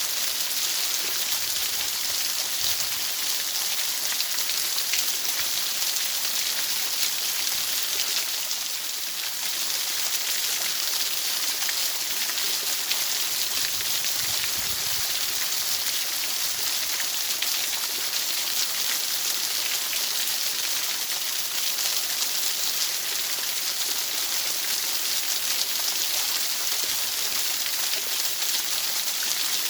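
Steady, bright white-noise hiss, even in level throughout.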